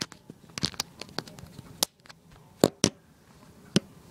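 Handling noise from the camera being picked up and moved: sharp, irregular clicks and knocks. The loudest is a quick pair about two and a half seconds in. No motor or rotor hum is heard.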